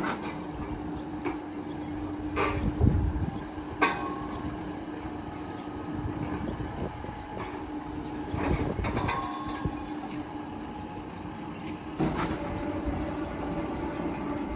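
A machine humming steadily at one pitch, with several sharp knocks and clatters over it.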